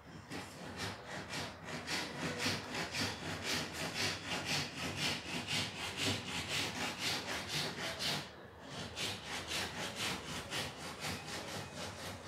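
Rapid, forceful rhythmic breathing, about five short breaths a second, with a brief pause about eight seconds in.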